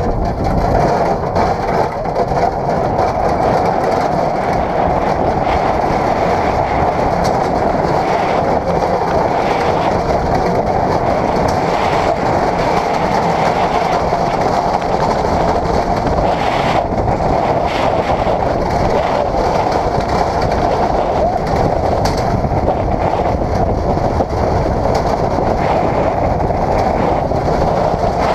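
Wheeled summer bobsleigh running at speed down the concrete bobsleigh track: a loud, steady rolling rattle of wheels on concrete that holds unbroken through the banked curves.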